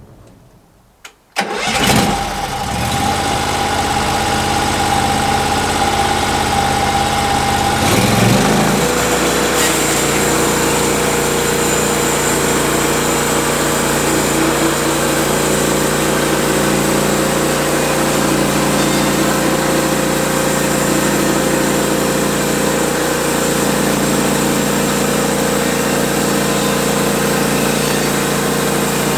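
Sawmill's gasoline engine cranking and catching about a second and a half in, then running steadily. About eight seconds in it speeds up and settles at a higher, steady pitch.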